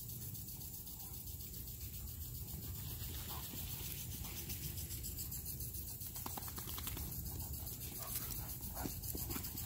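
Evening insect chorus: a steady, high, finely pulsing buzz. From about six seconds in there are faint short clicks and scuffs of the Great Danes' paws on concrete as they play.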